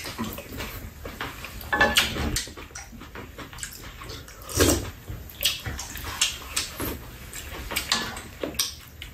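Close-up eating sounds of two people having braised potatoes: wet chewing and slurping, with irregular small clicks and scrapes of spoons and chopsticks against the pan and bowls.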